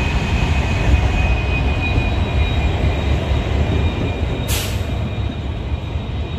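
Express passenger train passing close by: the locomotive and then the coaches rumbling past on the rails, with a steady high whine over the rumble and a short hiss about four and a half seconds in.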